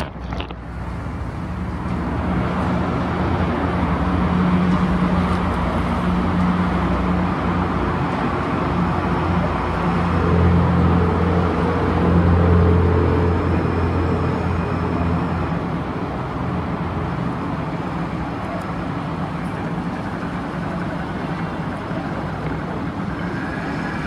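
Road traffic: a steady hum of motor vehicle engines and tyre noise, swelling loudest about halfway through.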